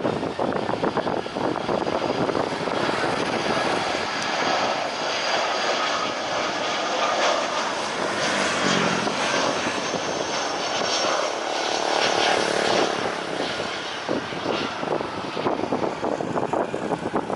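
Airliner engines running as the plane passes close by: a steady, loud noise with a high whine that is strongest around the middle.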